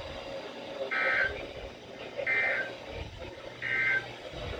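Three short buzzy data bursts of NOAA Weather Radio SAME tones, a little over a second apart: the Emergency Alert System end-of-message signal closing a tornado watch broadcast.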